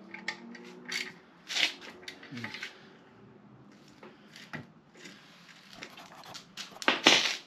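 Metal hand tools clinking and scraping in short, irregular strokes as a bolt on a front disc brake caliper assembly is done up tight. The loudest clinks come near the end.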